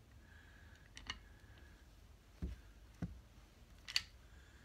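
Sparse, faint metal clicks and a couple of soft knocks from a torque wrench and socket being worked on the connecting-rod big-end nuts of a BSA A70L Lightning crankshaft: a double click about a second in, two dull knocks, then a sharper click near the end.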